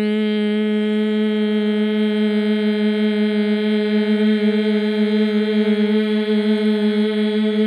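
A woman's voice holding one long vocal tone on a single steady pitch, a sustained vowel sound used in vocal toning to make the whole body vibrate.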